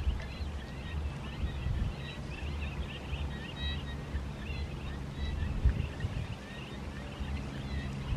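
A brood of ducklings peeping, many short high chirps overlapping without pause, over a low steady rumble.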